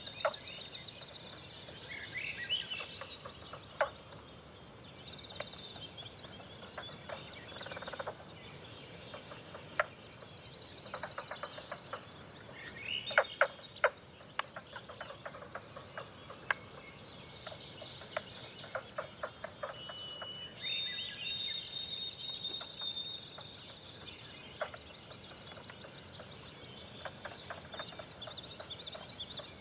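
Songbirds singing in a dawn chorus: several overlapping high trills and chirps, with short runs of rapid clicks and a few sharp, louder clicks.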